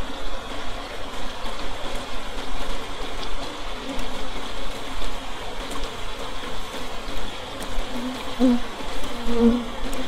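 Swarm of honeybees buzzing in a steady hum, close by, as a dense cluster crawls over the mouth of a wooden log hive.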